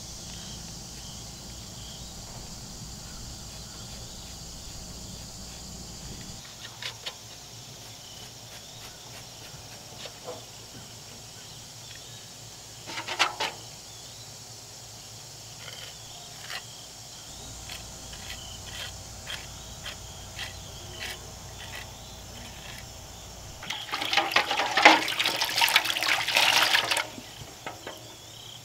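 Water splashing and running into a metal bucket as a wet rag is rinsed and wrung out. It is loudest for about three seconds near the end, with a shorter splash about halfway through.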